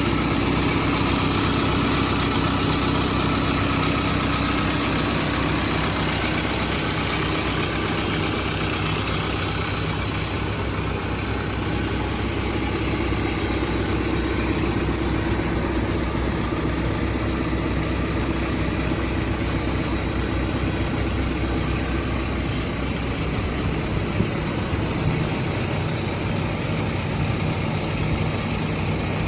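JCB 3CX backhoe loader's diesel engine idling steadily.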